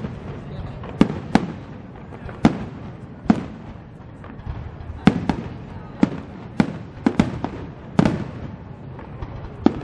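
Aerial fireworks display: shells bursting in a string of about a dozen sharp bangs at irregular intervals, some in quick pairs, over a steady background of crackling.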